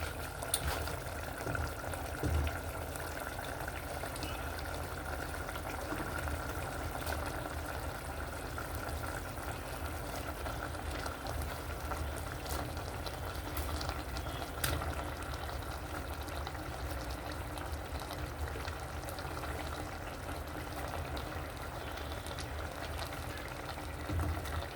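Pot of okra soup boiling steadily, a continuous bubbling hiss with an occasional faint click.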